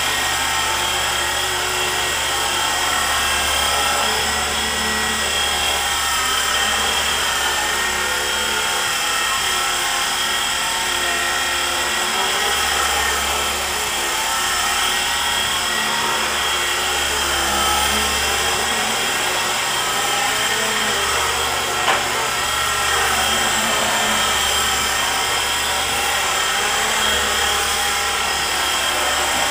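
E-flite SR120 micro electric RC helicopter flying: a steady, high-pitched whine of its electric motors and rotor blades, with tones that waver as the rotor and tail rotor speeds change. A single sharp tick sounds about three-quarters of the way through.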